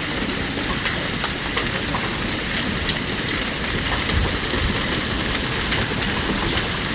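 Hailstorm with stones about the size of ping-pong balls: a steady hiss of falling hail and rain, dotted with many sharp clicks of individual hailstones striking.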